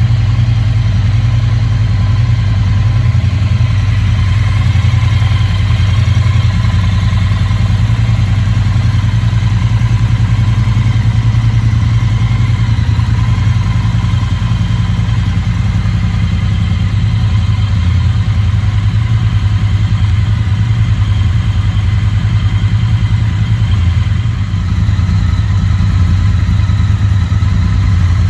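2021 Triumph Bonneville T100's 900 cc liquid-cooled parallel twin with a 270-degree firing order, idling steadily.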